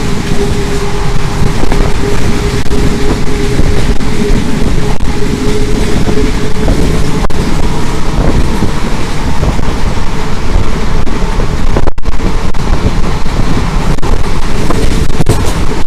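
Passenger train running at speed, heard from an open doorway: a loud, steady rumble of the wheels on the rails mixed with wind buffeting the microphone. A faint steady whine sounds through the first several seconds and then fades.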